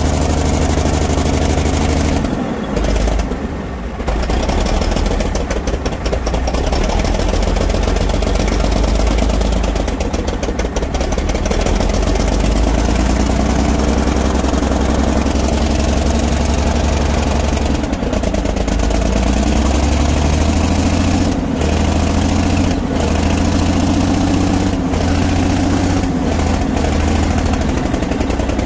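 1959 Kenworth truck's engine running just after a cold start in freezing weather. It dips briefly about three seconds in, then runs on steadily.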